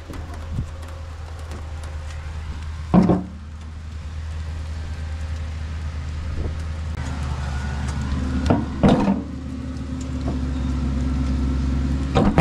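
Tractor engine running with a steady low hum that slowly grows louder, with a few sharp knocks: one loud knock about three seconds in, two close together about nine seconds in, and one more near the end.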